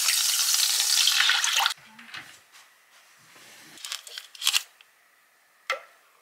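Water poured from a measuring cup into a hot, just-seared pan, hissing and sizzling, cutting off abruptly about two seconds in. Then a small plastic seasoning packet crackles as it is torn open, and a single sharp click comes near the end.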